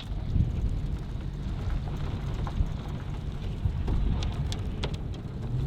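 Pickup truck on the move: a steady low rumble of engine and road noise, with a few faint clicks.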